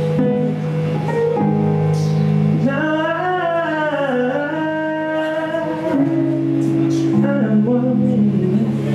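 Man singing an R&B freestyle into a microphone over sustained backing chords, with a winding vocal run about three seconds in. The backing chords change about six seconds in.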